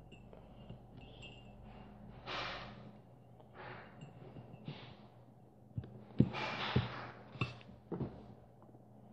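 Faint breathing, several short huffs of breath through the nose, with a few small clicks from handling wires and parts. A faint low hum and a thin high whine drop out about three seconds in.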